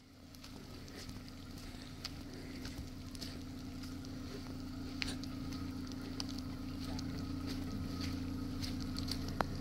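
Pickup truck engine running steadily at low speed as the truck crawls through deep mud, slowly growing louder, with a few small clicks scattered through it.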